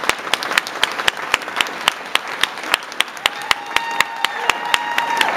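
Audience applauding, with rapid clapping throughout. About three seconds in, a voice holds a long cheer for about two seconds.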